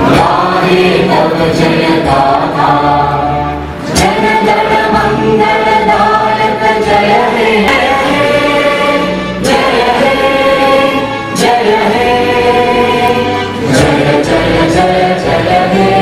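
A choir singing a song with musical accompaniment, in held phrases with short breaks between them.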